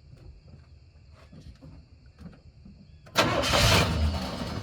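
1990 Chevrolet C1500 pickup's engine starting about three seconds in, catching at once and running loudly, then easing off slightly. This engine stalls whenever it is put into gear.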